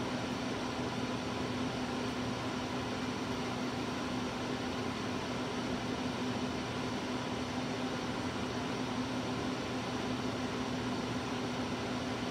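Steady hum of running machinery: a constant low tone over an even whir, unchanging throughout.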